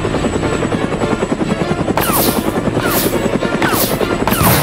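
Helicopter rotor sound effect: the blades chop rapidly and steadily over music. From about halfway, four hissing bursts come roughly a second apart, each with a whistle falling in pitch.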